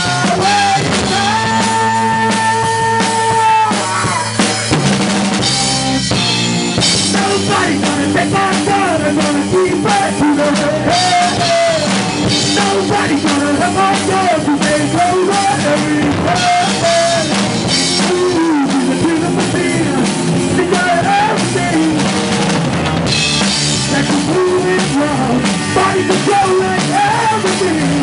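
Rock band playing live in a rehearsal room, heard from behind the drum kit: drums with bass drum and cymbals, electric guitar, and a wavering melody line on top, with a long held note early on.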